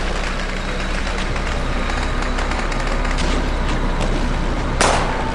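Gunfire sound effects: a rapid scatter of gunshots and bullet impacts over a steady low rumble, with one loud, sharp crack about five seconds in.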